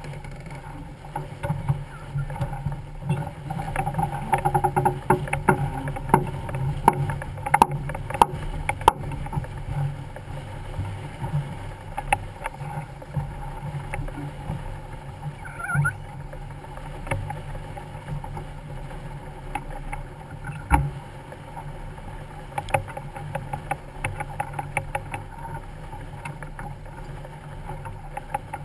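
Sailboat under sail: water rushing and slapping along the hull, with scattered clicks and knocks from the boat.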